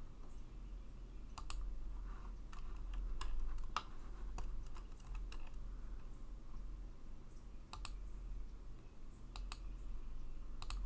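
Clicks of a computer mouse and keyboard while someone works in CAD software. The clicks are scattered and irregular, some in quick pairs, over a low steady hum.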